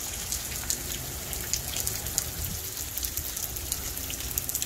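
Heavy rain falling steadily on a street and pavement, with many separate drop splashes heard on top.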